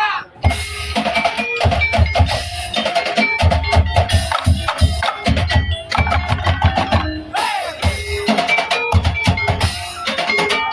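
Tongtek percussion ensemble playing a fast, dense drum rhythm with heavy bass-drum beats and a melody line over it, starting about half a second in.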